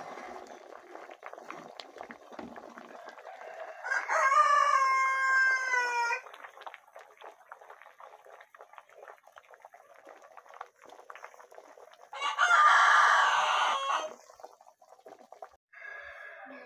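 A rooster crowing twice: a clear, pitched crow about four seconds in, and a harsher, raspier crow about twelve seconds in, each lasting about two seconds.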